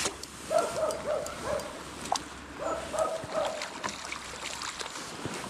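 A dog barking: two bouts of several short barks, the second starting about two seconds after the first, with faint clicks and rustling of handling throughout.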